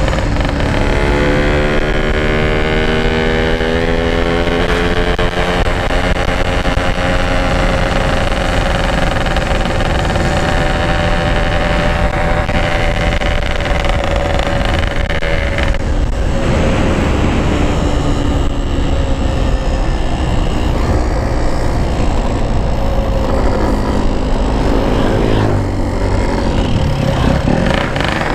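Yamaha RX-King's two-stroke single-cylinder engine pulling under way at riding speed. Its exhaust note rises in pitch at the start, then holds fairly steady, dropping and climbing again a few times around gear changes in the second half.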